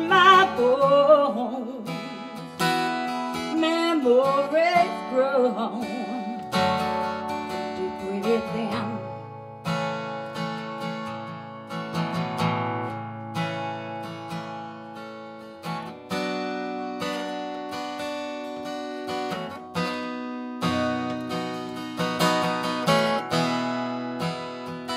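Acoustic guitar strummed in chords, with a sung vocal line wavering in pitch over roughly the first nine seconds, then the guitar carries on alone.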